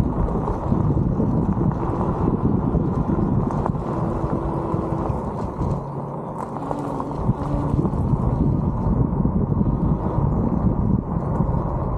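Steady wind buffeting the microphone of a moving mobility scooter, over the low rumble of its tyres on a gravel road; the wind eases briefly about six seconds in.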